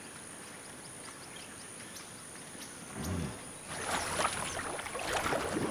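African forest elephants' feet splashing and sloshing through shallow muddy water, starting a little past the middle, over a steady high insect chorus. A short low call is heard about three seconds in.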